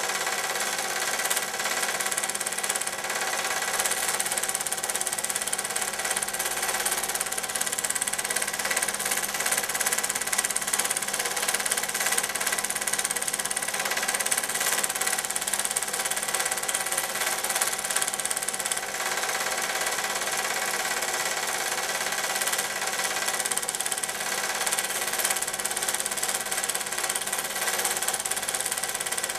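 Film projector running: a steady mechanical whir with a fast, even clatter from the film-advance mechanism.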